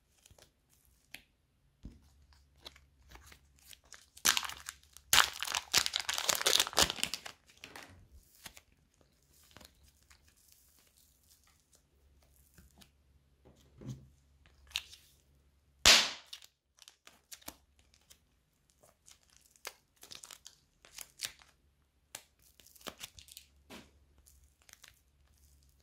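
Soft clay-like slime being squeezed, pressed and pulled apart by hand, giving crackly, crinkly sticky noises. A dense run of crackling comes a few seconds in and a single sharp crack near the middle, with quieter squishes in between.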